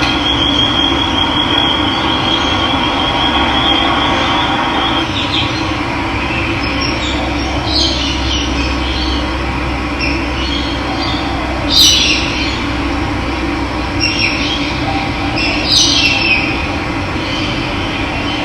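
Running water rushing steadily and loudly, with birds calling over it: a high trilling note for about the first five seconds, then several short, sharp calls.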